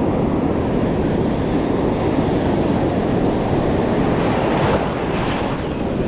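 Surf washing against rocky shore, with wind buffeting the microphone as a low rumble. A hissier wash of water comes in about four and a half seconds in.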